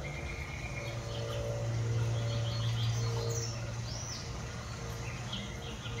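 A steady low hum with small birds chirping and twittering now and then over it. No sandhill crane calls stand out.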